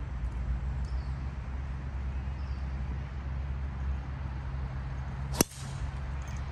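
A golf driver striking a ball off the tee: one sharp crack about five seconds in, over a steady low background rumble.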